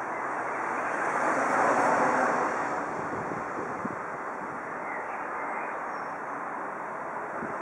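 Outdoor background rush, swelling louder a second or two in and then fading back to a steady level.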